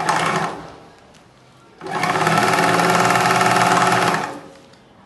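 Table-mounted bag closer machine stitching across the mouth of a bag: a short burst of running right at the start, then a steady run of about two and a half seconds that stops near the end.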